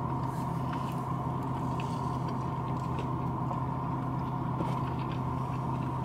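Steady low hum of a car idling, heard from inside the cabin, with a few faint soft ticks over it.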